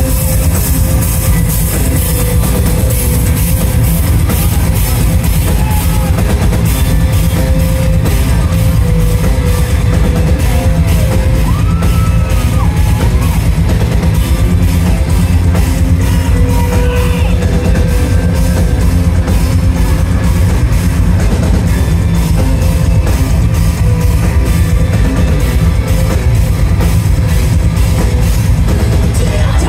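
Metal band playing live at full volume: distorted guitars and bass over a steady, driving drum kit beat, heard from within the crowd with a heavy, boomy low end.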